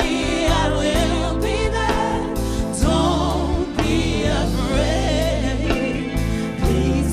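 A gospel-style song performed by singers with a band. The voices sing with vibrato over steady bass and regular drum beats.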